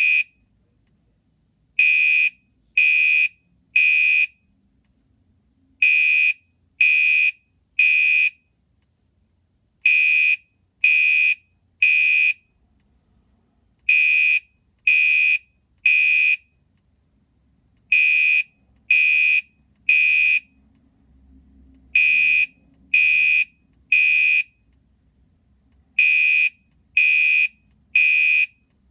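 Gentex Commander 3 fire alarm horn sounding the temporal-three evacuation pattern: three short, high, piercing beeps about a second apart, then a pause, repeating every four seconds.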